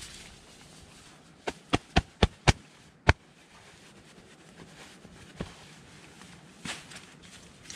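A blue camping pillow being handled: five sharp snaps in quick succession, about four a second, then a single louder one about half a second later, with two fainter ones further on.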